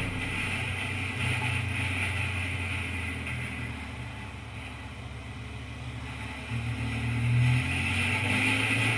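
Onboard sound of a Kawasaki Versys motorcycle on the move: a steady engine hum under wind rush. It eases off through a bend, then rises again as the bike accelerates out, about seven seconds in.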